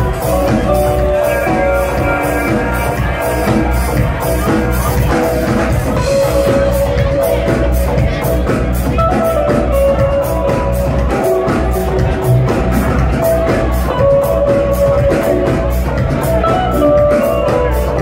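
Live electronic dance music played loud over a club sound system: heavy bass, a fast steady drum beat and sustained synth lines.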